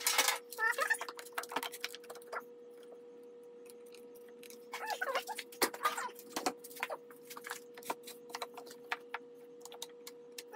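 Wooden boards knocking on a workbench and one-handed bar clamps clicking as they are ratcheted tight, with a few short squeaks near the start and about five seconds in.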